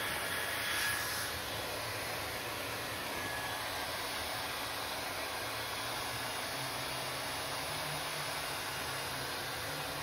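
Handheld hair dryer running, a steady rush of air with motor hum, briefly louder about a second in.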